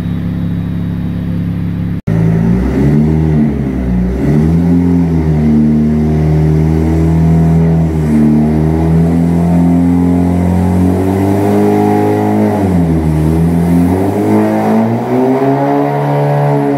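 2019 Honda Civic Sport's turbocharged four-cylinder breathing through a Ktuned full exhaust, running steadily, then after a sudden break about two seconds in revving under load on a dyno, its pitch climbing and dropping back several times.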